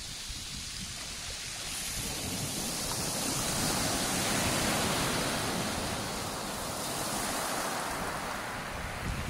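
Small waves breaking and washing over a shingle beach, the surf swelling to its loudest about four to five seconds in, easing, then rising again near the end.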